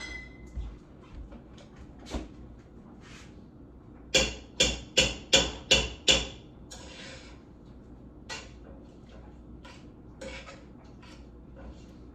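Kitchen utensil knocking: a run of six quick, sharp knocks about four seconds in, with scattered lighter clicks and clatter around them.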